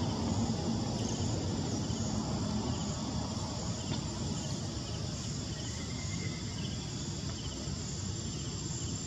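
Insects, crickets or cicadas, buzzing steadily in the forest over a low background rumble, with faint short chirps now and then.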